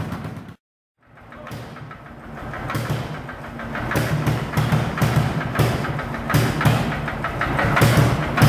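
Lanz Bulldog tractor's single-cylinder hot-bulb two-stroke engine running with a fast, even thump. The sound cuts out completely for about half a second near the start, then fades back in.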